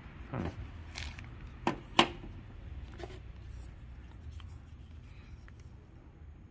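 Small plastic dashcam parts being handled: a few short clicks and rustles in the first three seconds, the sharpest click about two seconds in, over a steady low background hum.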